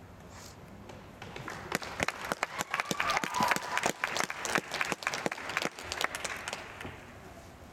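Audience applauding: a small crowd's clapping, with separate claps audible, swells about a second in and dies away near the end.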